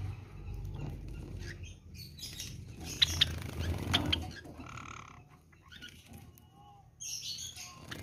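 Java sparrows bathing in a shallow water dish: fluttering wings and splashing water, with a few sharp chirps around the middle.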